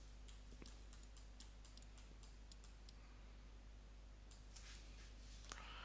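Faint, light clicking of a computer keyboard and mouse: about nine quick clicks in the first three seconds, then a few more near the end, over near silence.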